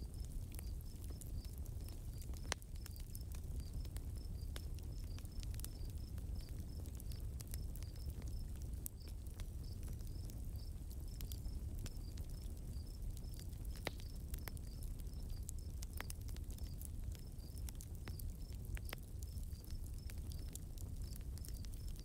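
Nature-sound ambience: crickets chirping in a rapid, even pulse, with scattered taps and clicks over a low steady rumble.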